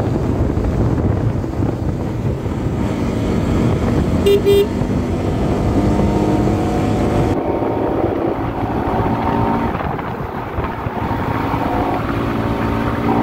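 Bajaj Pulsar NS200's single-cylinder engine running at cruising speed under heavy wind rush on the microphone. Two short horn toots about four seconds in; the engine note comes through as a steady drone from about six seconds on.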